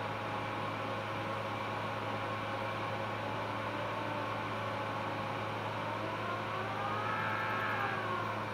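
Phacoemulsification machine running during cataract surgery: a steady electrical hum with several held tones. Near the end, one tone rises and then falls in pitch, the machine's aspiration feedback tone following the foot-pedal vacuum.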